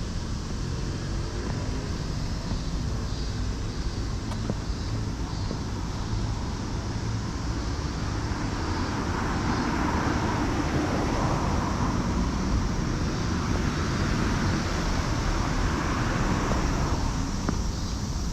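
Steady outdoor traffic noise, with a passing vehicle swelling louder through the middle and then fading.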